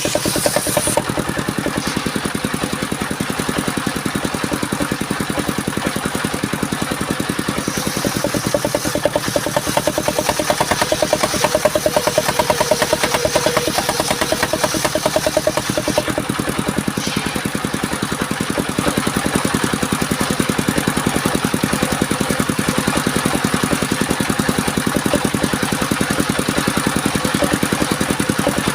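Engine of a portable circular sawmill running steadily, with a fast, even engine pulse and no let-up.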